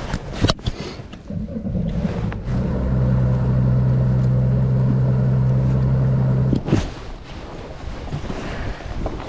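Yamaha outboard motor on a bass boat running at idle speed, a steady hum that builds up over the first couple of seconds and cuts off at about seven seconds, leaving wind and water noise. A sharp knock comes about half a second in.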